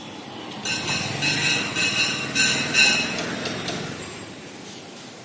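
A metal container ringing under a quick run of about six clinks over two and a half seconds, each strike holding the same bright ringing tone, then dying away.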